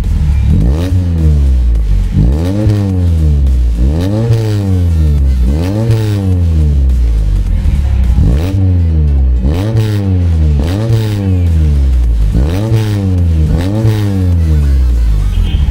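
Toyota Sprinter's four-cylinder engine revved again and again through a K-Racing chambered muffler, heard at the tailpipe. Each quick throttle blip rises in pitch and falls back, about one every second and a half.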